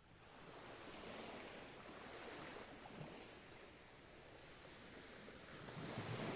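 Ocean waves washing ashore in two surges: the first rises in the first second and slowly eases, and a second, louder one builds near the end.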